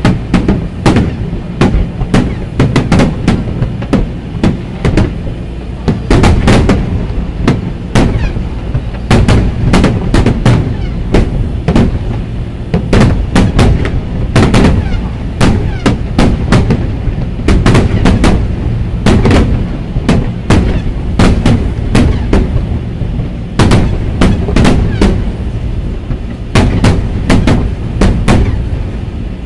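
An aerial fireworks display, with shells bursting in rapid succession: many sharp bangs, a few each second, over a continuous low rumble.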